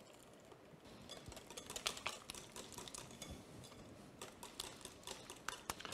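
Wire whisk clicking against a glass bowl as it stirs melted butter into crêpe batter: a faint, quick, irregular run of taps starting about a second in.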